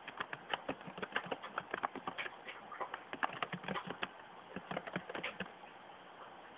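Faint, quick, irregular clicking of keys being typed on a computer keyboard, thinning out near the end.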